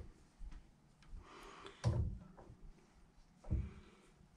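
A few dull knocks and light handling noises at a milling machine while the crankshaft setup is adjusted, the clearest about two seconds and three and a half seconds in.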